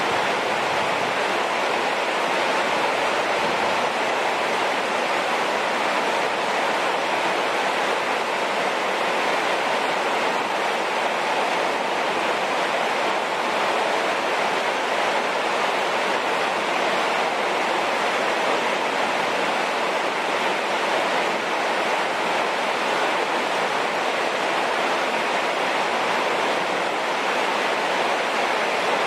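Heavy rain falling, a steady hiss.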